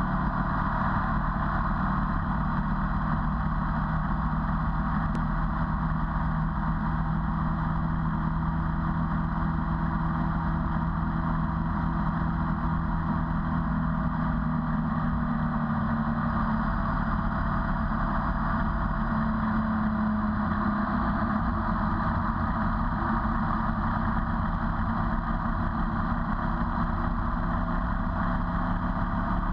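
Ducati 848's V-twin engine running steadily under way, with a steady rush of wind and road noise; its note steps up in pitch about two-thirds of the way through.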